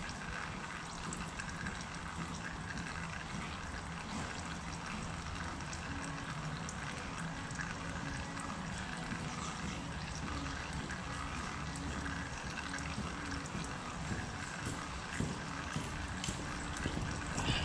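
Oil draining in a steady trickle into a drain container as it fills.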